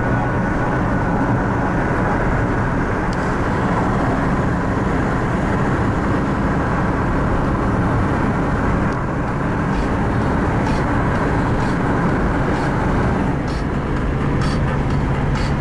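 Steady road and engine noise of a moving car, heard from inside the cabin, with a steadier low hum setting in near the end.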